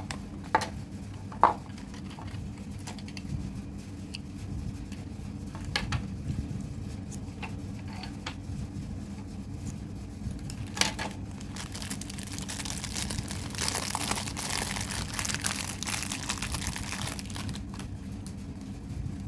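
Plastic packaging being handled during an unboxing: a few sharp clicks and taps, then several seconds of crinkling and rustling past the middle.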